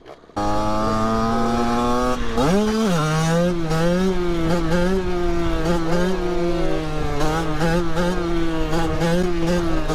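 Two-stroke Beta Track 50 supermoto with a 70 cc kit and Most expansion pipe, heard from the rider's seat while riding: the engine runs at high revs that fall slightly, gives a quick rev up and drop about two seconds in, then runs on at fairly steady revs with small throttle wobbles.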